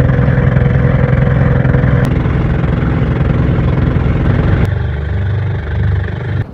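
Engine of a wooden motorized bangka (pump boat) running steadily under way, a loud, even drone. Its sound changes abruptly twice, about two seconds in and near five seconds.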